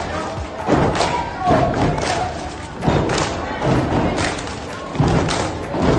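A squad of girls shouting a cheer together, with repeated heavy thumps about once a second from stomping on wooden bleachers.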